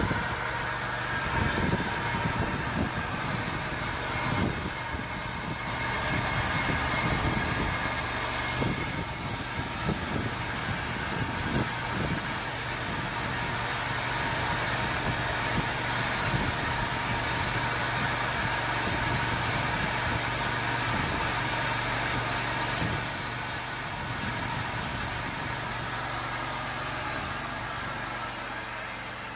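Petrol engine of a portable frame sawmill running steadily under load as the carriage is pushed through a large claro walnut log, cutting a slab. It runs a little quieter near the end.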